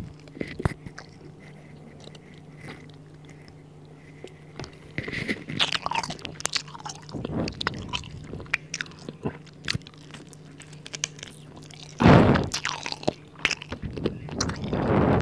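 Close-up biting and chewing of barbecued chicken wings: wet, sticky mouth clicks and smacks. A loud burst comes about twelve seconds in, and a drawn-out 'ahh' near the end.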